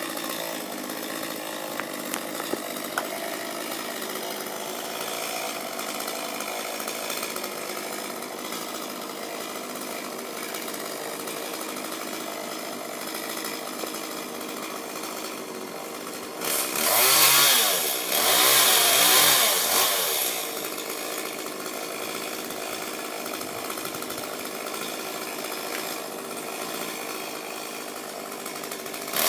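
Chainsaw engine running at a steady idle, revved up hard for about four seconds a little past halfway, its pitch rising and falling, then dropping back to idle before revving again at the very end.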